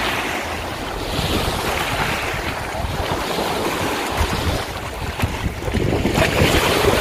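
Wind buffeting the microphone over small waves washing on a wide river's shore, the wash swelling twice, about a second in and near the end.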